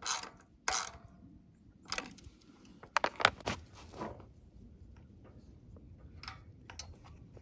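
Irregular clicks, knocks and light rattles of plastic parts and small hardware being handled and fitted onto a portable generator's air filter housing, the sharpest cluster a little past three seconds in.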